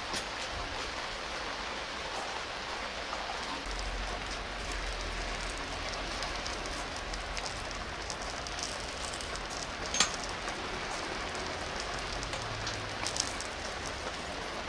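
Charcoal briquettes being added to a clay jar oven: one sharp clink about ten seconds in and a few lighter knocks later, over a steady, even hiss.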